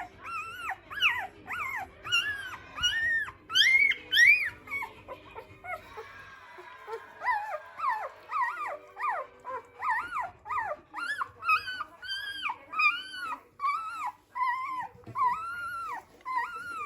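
A litter of young Bernese mountain dog puppies squeaking and whimpering: many short high calls that rise and fall, several a second and overlapping.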